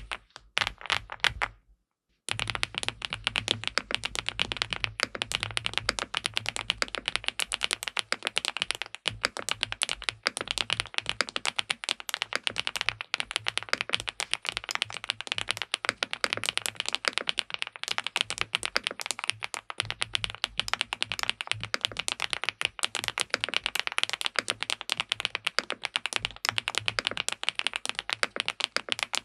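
Fast, continuous typing on an SPM PL87W (Mongdol87) TKL mechanical keyboard with linear switches, a dense clatter of keystrokes. The typing stops for a moment about two seconds in, then runs on without a break.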